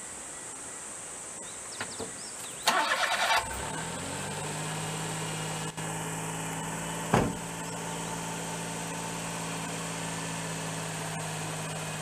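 A kei mini truck's engine is cranked by the starter for under a second, catches about three seconds in, and then idles steadily. A single sharp knock comes a few seconds after it starts, as the cab door is shut.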